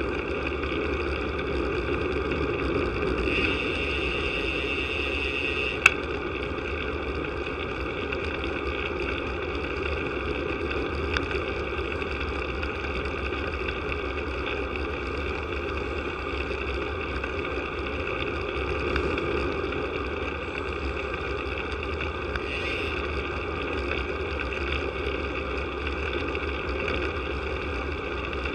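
Steady wind rumble and tyre-on-tarmac noise on a bicycle-mounted camera riding along a paved road, with a brief higher whir about three seconds in and one sharp click about six seconds in.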